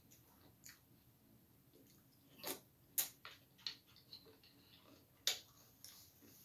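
Plastic spoon clicking against a clear plastic bowl of cereal and milk: a few sharp, scattered clicks, the loudest about three seconds in and again about five seconds in.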